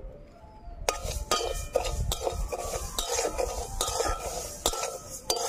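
A metal spatula scrapes and stirs raw moong dal around an aluminium kadai as the dal is roasted. The lentils rustle and the pan rings, in clicking strokes about twice a second that start about a second in.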